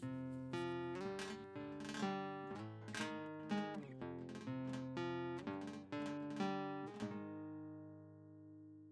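Acoustic guitar music: plucked notes and chords about twice a second, ending about seven seconds in on a chord that rings out and fades.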